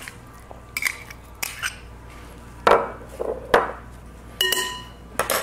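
Kitchen utensils knocking and scraping against a mixing bowl as refried beans are spooned into the burger mix: about five sharp clinks and knocks, one of them ringing briefly near the end.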